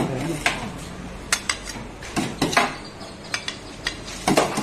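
Serving spoon and plate clinking and knocking against stainless-steel food trays as rice is scooped and plated: a string of irregular sharp clicks, bunched together near the end.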